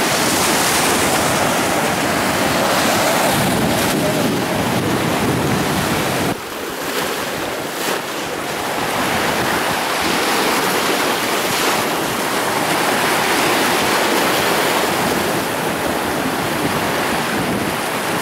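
Surf washing and breaking against the jetty rocks, with wind buffeting the microphone. The low wind rumble drops off about six seconds in.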